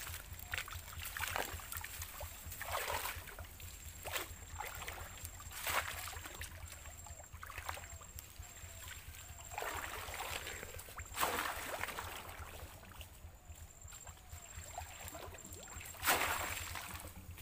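Shallow water splashing and sloshing in irregular bursts as a bamboo polo fish trap is plunged down and lifted out and a man wades. The loudest splash comes about sixteen seconds in, when the trap is raised dripping.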